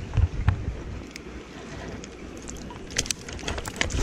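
Water splashing and sloshing around a landing net held in a river, with sharp splashes and drips throughout. Low thumps from wind and handling on the camera microphone are loudest in the first half-second.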